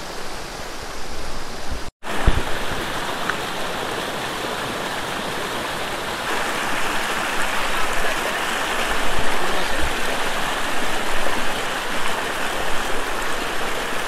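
Steady rush of flowing stream water, cutting out for an instant about two seconds in.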